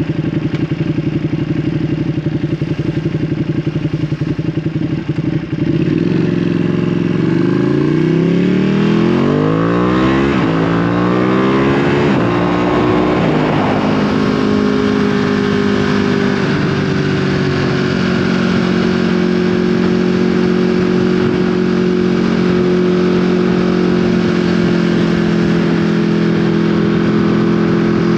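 Ducati Panigale V2's L-twin engine through an Akrapovic exhaust. It runs at low revs, opens up about five seconds in, and climbs steadily in pitch for several seconds before settling to a steady cruising note.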